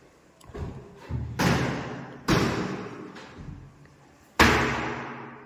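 UPVC wardrobe doors being swung and banged shut, a series of knocks, the loudest about four and a half seconds in, each dying away in the echo of a bare room.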